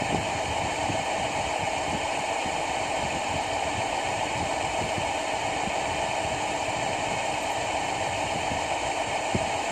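Steady mechanical drone with a hiss, unchanging, as from running machinery or a fan.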